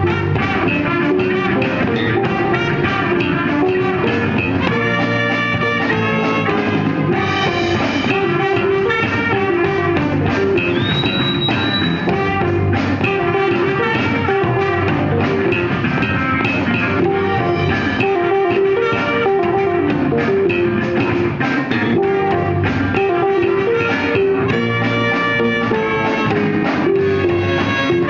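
Live funk-jazz band playing.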